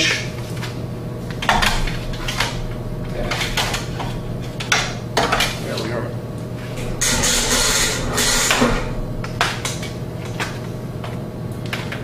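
Scattered clicks and light metal clatter from handling a spring-clamp work light and clipping it onto a pipe, with a longer scraping rustle about seven seconds in. A steady low hum runs underneath.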